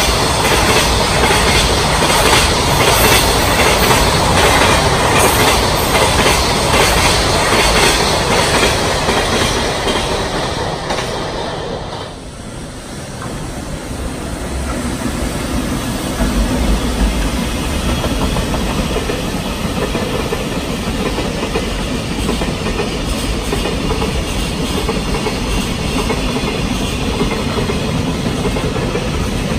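Container freight train passing at speed, its wheels clattering over the rail joints in a steady rhythm. The sound drops away about twelve seconds in, then another freight train hauled by an electric locomotive comes through with a steady low rumble.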